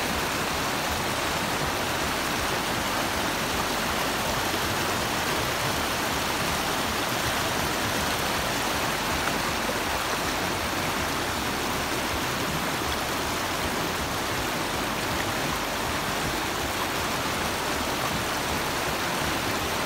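River water rushing over rocks in shallow rapids: a steady, even rush.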